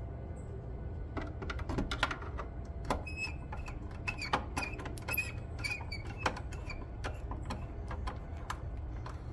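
Screwdriver working the top line-side lug screw of a three-phase disconnect while a wire is seated in the terminal: small, irregular metal clicks and scrapes, some with a faint high ring, over a low steady hum.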